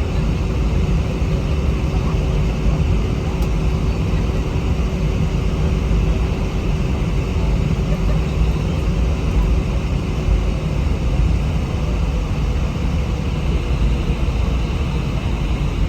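Airbus A319 airliner cabin noise with the engines running: a steady, deep rumble under an even hiss, with a faint steady hum that stops about two-thirds of the way through.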